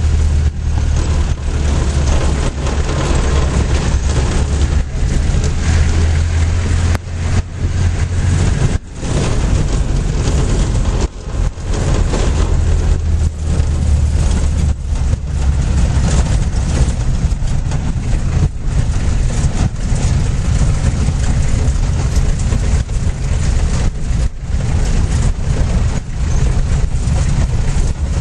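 Vehicle riding on a rough gravel road, heard from inside: a steady loud mix of engine, tyre and road rumble, with a deep hum that fades about nine seconds in and returns for a few seconds later on.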